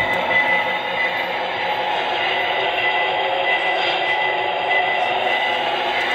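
Lionel RailSounds diesel engine sound from a toy O-gauge GP38 locomotive's onboard speaker, a steady engine drone with a few held tones, mixed with the running of the model's dual motors on the track. It dips slightly about a second in and then holds steady.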